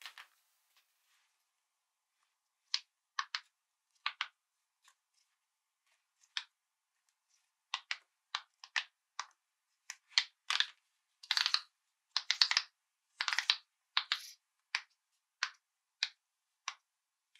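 Silicone pop-it fidget toy having its bubbles pushed through by fingers: a series of short, sharp pops, scattered and widely spaced at first, then coming in quick clusters about two-thirds of the way through.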